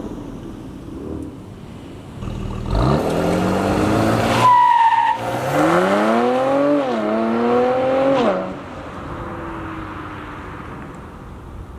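Mercedes-AMG C43 sedan with the AMG Performance Exhaust and stock catalytic converters accelerating hard, its engine note rising steeply three times with short breaks at two upshifts. After about six seconds it lifts off and fades away.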